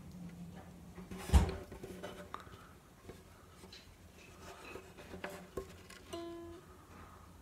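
Strings of a mahogany baritone ukulele ringing faintly as the instrument is handled. There is a sharp thump on it about a second in and a short plucked note near the end. The strings are fresh from the box and well out of tune.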